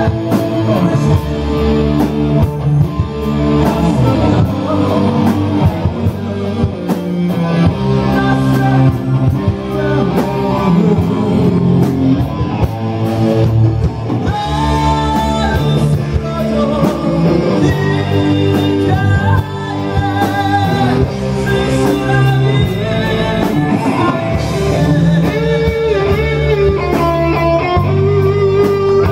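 A live rock band playing: a man sings into a microphone over electric guitar, bass guitar and a drum kit.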